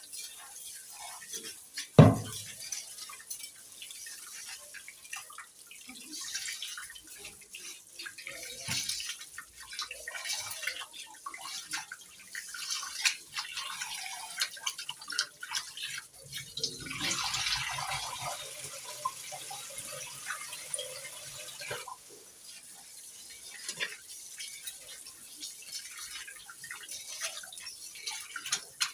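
Rice being washed by hand in water at a kitchen sink: splashing and dripping, with the tap running briefly about halfway through. A sharp knock about two seconds in.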